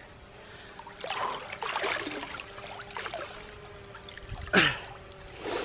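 Lake water sloshing, splashing and dripping as a man wades out through the shallows and climbs onto the rocks of the bank, with a sudden louder splash about four and a half seconds in. A faint steady hum runs underneath.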